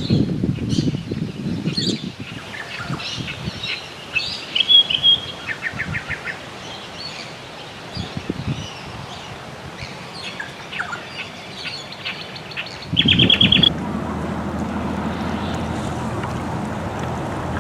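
Several wild birds calling, a scatter of short chirps and whistles with two quick rapid-fire trills. A low, steady rumble sits under them at the start and comes back sharply about two-thirds of the way in.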